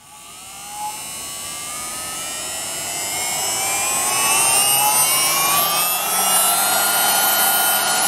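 MECO cordless mini handheld vacuum cleaner's small motor spinning up: a whine rising in pitch and growing louder over the first four seconds, then running steadily.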